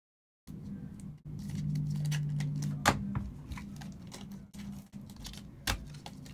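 Trading cards and a foil pack wrapper being handled, with rustling and sliding noise, a low steady hum underneath, and two sharp clicks about three and five and a half seconds in.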